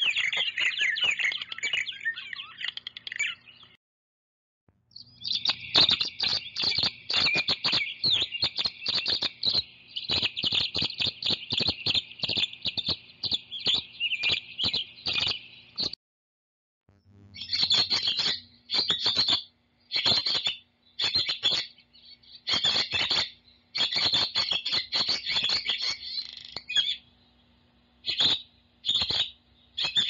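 Recorded calls of purple martin and tree swallow, played one after another: fast runs of rapid chirps, broken by short gaps between recordings about four and sixteen seconds in.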